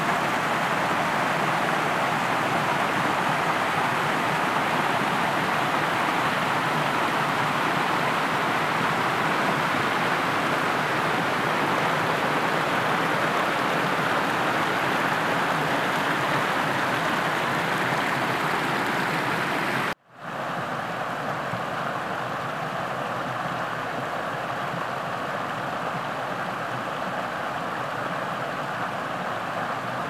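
Steady rush of a creek pouring over small rock cascades. About two-thirds of the way through, the sound cuts out for an instant and comes back as a slightly quieter, duller rush from another cascade.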